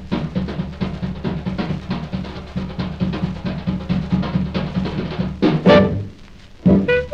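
Swing-era drum kit playing a fast solo intro of rapid snare and bass-drum strokes, capped by a loud accented hit with a pitched note about five and a half seconds in. After a short near-pause, the clarinet and band come in near the end.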